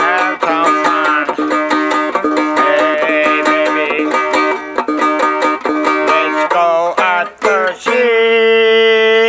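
Music: fast plucked-string picking under a melody line with vibrato, which settles into one long held note near the end.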